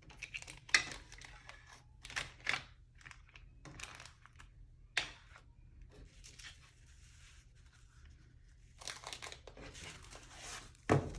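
Kit packaging being handled and unwrapped: irregular crinkling and rustling, with a few sharp clicks, the loudest near the start and again near the end.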